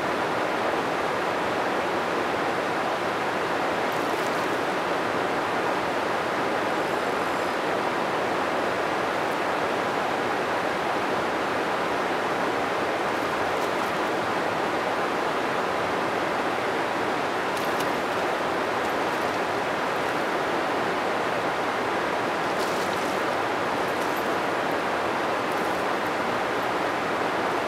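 Steady rush of river water flowing past rocks in the shallows, even and unchanging.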